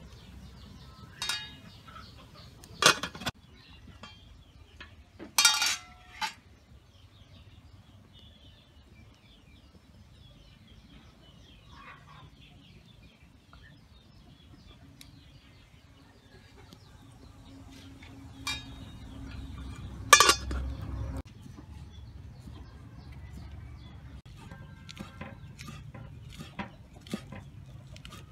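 Metal kitchenware clanking against a steel cooking pot a few times, some with a short ringing tail. Near the end a cleaver chops herbs on a wooden cutting board in quick, even strokes.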